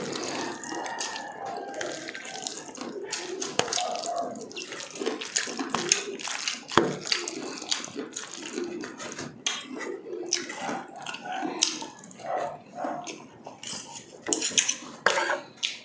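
Close-up chewing of breaded fried chicken: irregular crunches, smacks and wet mouth sounds, with no steady rhythm.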